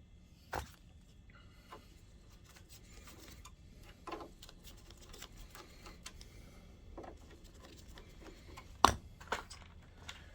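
Scattered light clicks and handling noises of small parts and a bag being handled on a workbench, with one sharper knock about nine seconds in.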